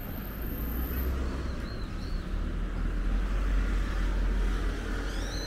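Low rumble of road traffic that swells and eases off, as of a vehicle passing close by, with a couple of faint chirps near the end.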